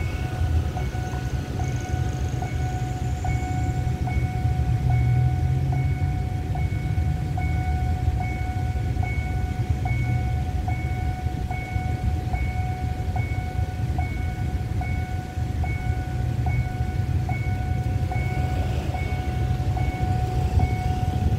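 Level-crossing warning signal sounding a steady, evenly repeated electronic beat, about one and a half pulses a second, over the low rumble of a ballast train passing through the crossing.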